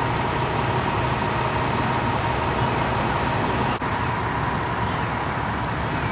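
Steady, loud engine and traffic noise, with a constant low hum and a thin steady whine over it; it drops out for an instant a little before four seconds in.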